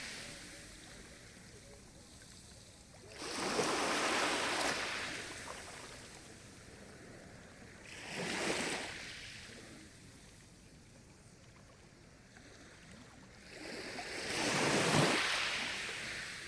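Sea waves breaking on the shore and washing back: three separate swells of surf hiss, each rising and fading over a second or two, with quieter gaps between.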